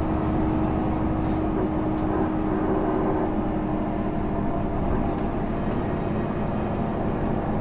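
Solaris Urbino 18 articulated city bus running, a steady mechanical drone with an even whine held through most of it.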